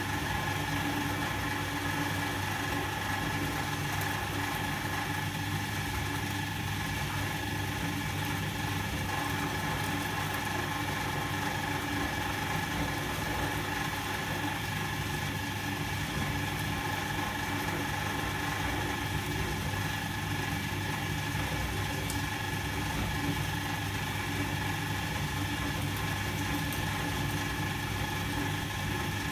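Volga-8R washing machine running in its wash cycle: a steady motor hum with an even mechanical drone and no change in level.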